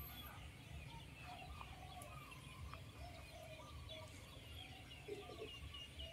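Faint calls of many birds around: scattered short chirps and calls, some high and some lower, over a low rumble.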